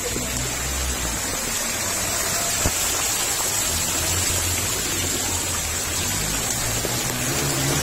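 Steady rush of floodwater running in heavy rain: an even hiss with a low rumble underneath.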